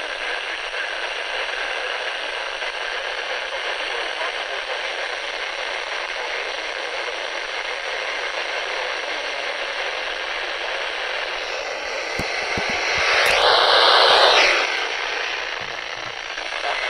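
Steady hiss of radio static from a weather radio receiver between broadcast messages, with a louder surge of static about thirteen seconds in that fades over a couple of seconds.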